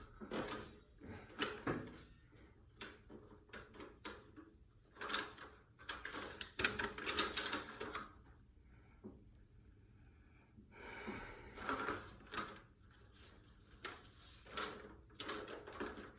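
A string of irregular rustling and knocking handling noises, each lasting a second or two, with short quieter gaps between them.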